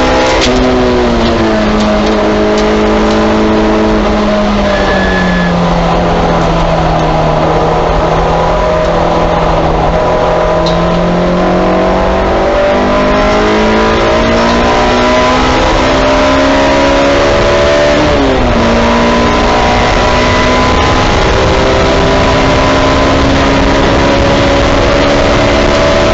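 Honda S2000 race car's four-cylinder engine heard from inside the cabin at speed on track: the engine note falls as it slows for a corner, holds low through the bend, then climbs under acceleration. About 18 seconds in the pitch drops sharply with an upshift from third to fourth, then rises again, over steady wind and tyre noise.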